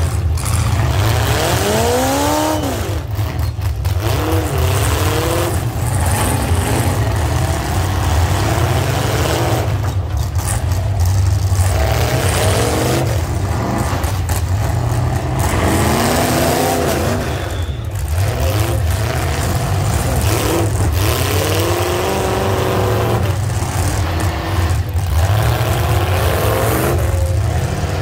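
Demolition derby cars' engines running loud with a heavy low rumble, revved up and back down again and again as the cars drive and ram in the arena.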